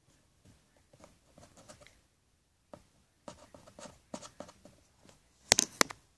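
Fingers and a small knife working modeling clay: faint scratching and rubbing, with two sharp knocks in quick succession near the end.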